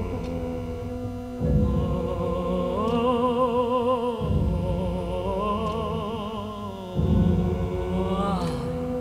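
Dramatic orchestral soundtrack music: heavy low drum strikes about every three seconds, with a high voice singing a sustained line with wide vibrato in the middle.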